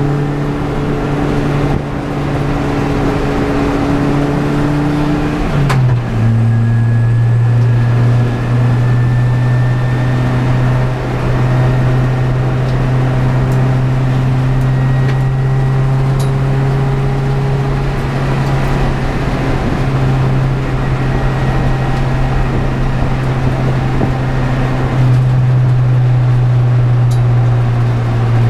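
Honda Prelude's H22 2.2-litre inline-four engine running under way at a fairly steady pitch, with a short drop in pitch about six seconds in and slow, slight climbs after it.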